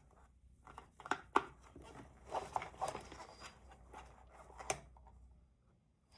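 Hands handling a toy tractor and its packaging: scattered light clicks and rustles, with sharper clicks about a second and a half in and again near five seconds.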